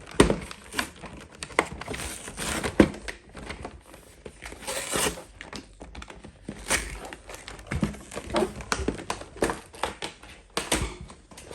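Cardboard and plastic packaging of a boxed Pokémon trading card collection being worked open by hand: irregular crinkling and rustling with sharp clicks and knocks.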